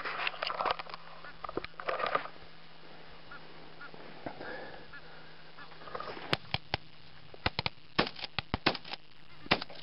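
Flock of snow geese calling: many short, high honks, bunched in the first two seconds and thickest again over the last four.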